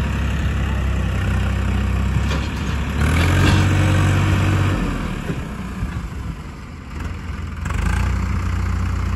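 Swaraj 855 tractor's three-cylinder diesel engine working under load as it pulls a loaded trolley. It revs up and gets louder about three seconds in, eases off around five seconds, and picks up again near the end.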